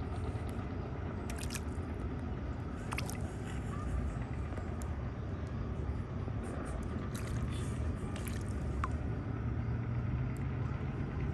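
Bluegill feeding at the water's surface, making scattered small splashes and slurps every second or two over a steady low rumble.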